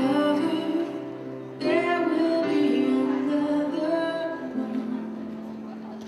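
Recorded routine music starting suddenly: long held notes with a female singing voice over them, a new phrase coming in about a second and a half in.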